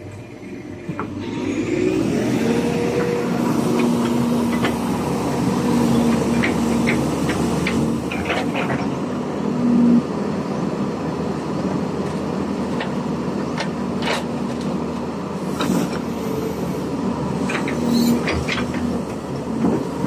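LiuGong 922E crawler excavator's diesel engine rising in revs about a second and a half in, then running steadily under hydraulic load with a steady whine. Scattered metallic clanks and knocks come from the undercarriage, whose steel track chain has just been refitted.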